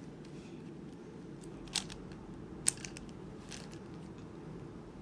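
Plastic layers of a QiYi Warrior W 3x3 speed cube clicking as they are turned by hand: a few short, sharp clicks, the loudest about two and a half seconds in, over a steady low hum.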